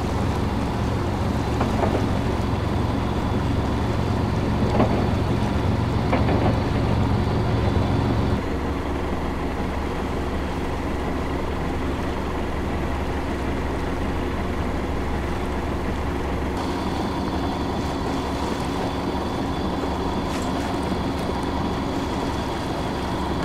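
A sailboat's 38-year-old inboard engine running steadily as the boat motors along, a low even hum. The sound changes abruptly about eight seconds in and again about sixteen seconds in.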